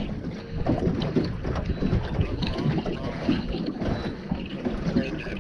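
Wind buffeting the microphone on an open fishing boat, with rumbling, irregular noise from the boat and water.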